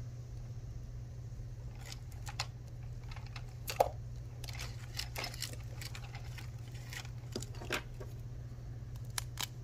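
Scattered light clicks and short paper rustles from paper money and a printed sheet being handled on a desk, the sharpest click about four seconds in, over a steady low hum.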